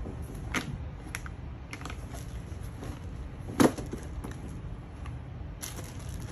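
Scattered light clicks, taps and rustles of leather gloves and paper packaging being handled and set down on a desk, with one sharper knock about halfway through.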